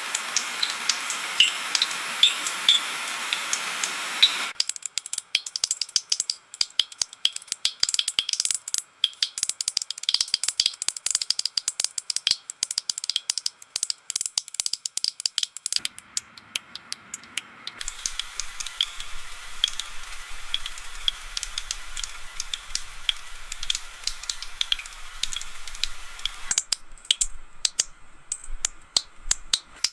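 Rain dripping: many quick, irregular drops tapping, with a steady hiss of rain under them for the first few seconds.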